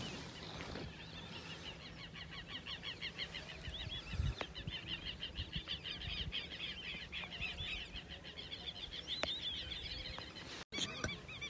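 A flock of birds calling together: a dense, steady stream of quick high chirps that breaks off abruptly near the end.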